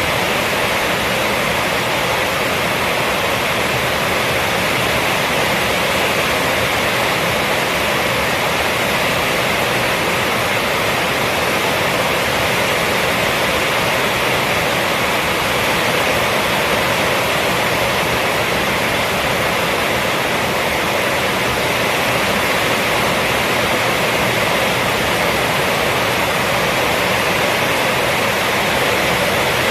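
Rainstorm on a roof: a dense, steady hiss of heavy rain with no single drops or thunder standing out.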